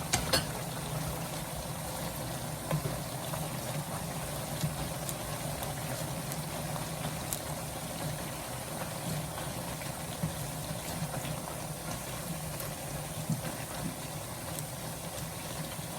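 Noodles and vegetables simmering in broth in a pan, a steady bubbling hiss with a low steady hum underneath and a few light clicks of utensils.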